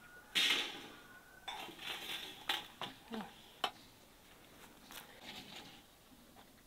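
Roast lamb in its basket being set down and handled on a large metal tray: a loud scrape about half a second in, then a string of sharp clinks and knocks of metal on the tray, fading to light rustling near the end.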